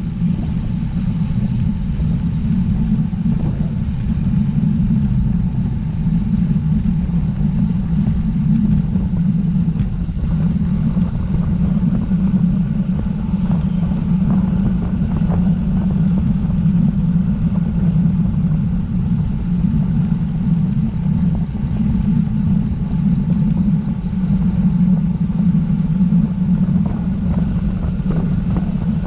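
Wind rushing over the microphone of a road bike descending at speed: a steady, loud, low rush.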